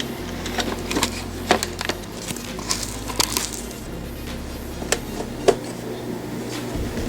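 Scattered sharp clicks and knocks of the RC crawler's hard plastic body and clips being handled, over quiet background music.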